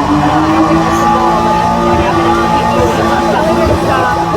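Music playing, with held notes that change from one to the next.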